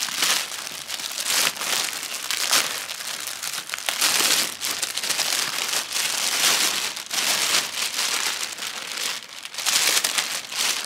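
Thin clear plastic packaging bag crinkling and rustling as hands pull it open and handle the tote bag inside it, in uneven surges throughout.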